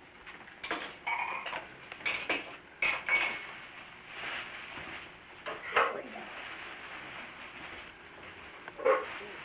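A few scattered light clinks and knocks, about five over the stretch, some with a brief ring, over quiet room tone.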